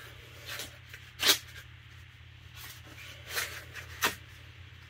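A few short knocks and rustles of a small axe and its sheath being handled, the loudest about a second in.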